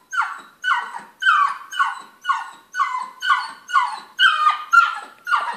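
Bernese Mountain Dog puppy whining over and over, about two short cries a second, each falling in pitch. It is the anxious crying of a puppy afraid to go down the stairs.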